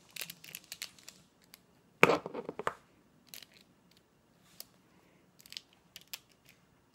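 Plastic 1x3x3 puzzle cube being turned by hand: quick, irregular clicks and clacks as its layers flip, with a louder clatter of clicks about two seconds in.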